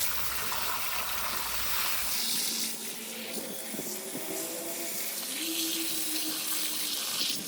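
Hot-water pressure washer jet spraying engine crankcases and cylinder heads, blasting off grease and oil residue: a steady hiss of water spray. A low rumble under it drops away about two seconds in.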